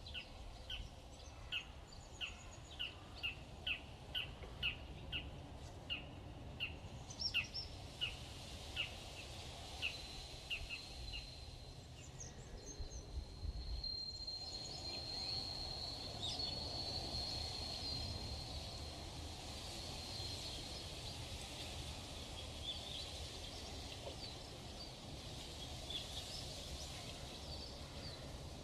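Night nature ambience: a bird gives a series of short high chirps, about two a second, that die away about ten seconds in, followed by a steady high thin trill lasting around ten seconds, over a faint low background hum.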